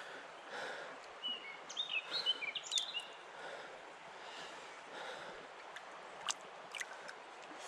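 Faint river water around a chub held by hand in shallow water. A bird chirps a quick run of short sliding notes between about one and three seconds in, and there are two sharp ticks near the end.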